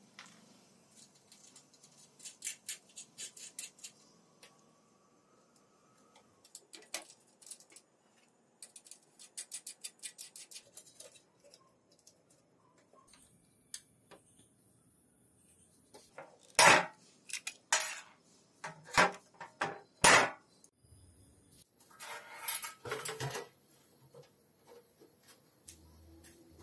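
Metal parts clinking and knocking against each other as they are handled: runs of light clicks, then four loud metal knocks about a second apart in the second half and a short burst of clatter near the end.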